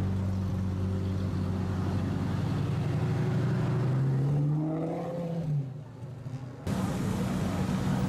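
Lamborghini supercar engines running at low speed as the cars crawl past, a steady low drone. About four seconds in, one engine's pitch rises as it pulls away, then fades. The engine sound comes back suddenly near the end.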